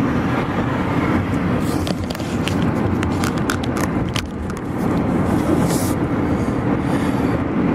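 Car engine and road noise heard from inside the moving car as a steady low drone, with a scatter of light clicks or rattles a couple of seconds in.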